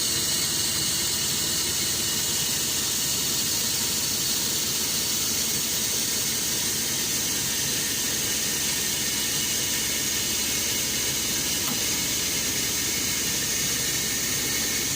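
Steady hiss with a faint high whine from the Foden 6x6 recovery truck's crane hydraulics working under load as the lift takes the weight of the machine.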